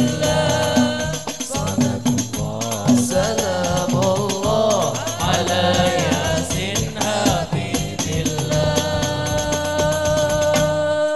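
Hadroh ensemble: male voices singing a devotional song in unison over fast, steady beating of rebana frame drums. Near the end the drumming stops and the singers hold one long final note.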